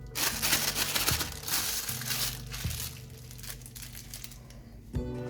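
A plastic sandwich bag crinkling and rustling as it is handled and filled. The crackling is loudest in the first two seconds or so, then dies down.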